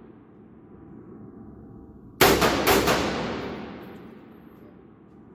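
AR-15 rifle fired through a SureFire MB556K muzzle brake: a loud report about two seconds in, with a few quick sharp cracks right after and a long echoing tail that fades away. The echo of the previous shot is still dying out at the start.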